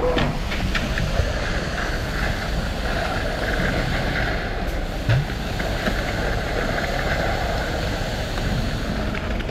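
Heavy diesel machinery running steadily at a concrete pour: a concrete pump and a ready-mix truck at work. There is a short knock about five seconds in.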